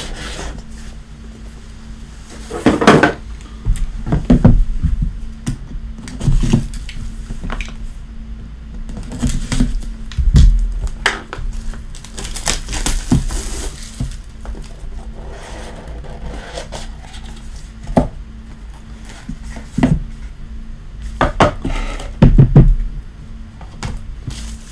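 Hands handling a cardboard trading-card box and a hard plastic card holder: irregular knocks, taps and clicks as the box is turned, opened and the cased card lifted out, with a rustle of about a second and a half about halfway through. A steady faint hum lies underneath.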